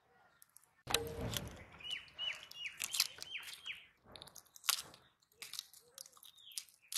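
Small fish being scaled and gutted on a boti blade: scraping, crunching and rustling of plastic with sharp clicks, starting suddenly about a second in. A bird calls over it with a quick run of short falling chirps, and once more near the end.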